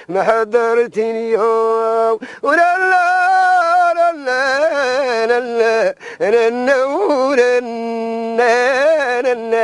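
A solo voice sings a slow, ornamented melody with long held, wavering notes and short breaks between phrases. This is the end-credits song of a TV series.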